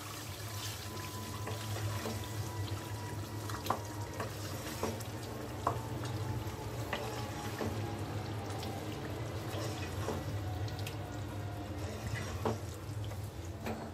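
Wooden spoon stirring thick chicken korma in a nonstick pan over a steady sizzling simmer, with a few light knocks of the spoon against the pan.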